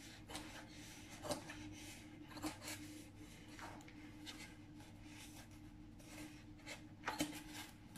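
Scissors snipping printed fabric in small, irregular cuts, faint, with a couple of slightly louder snips near the end.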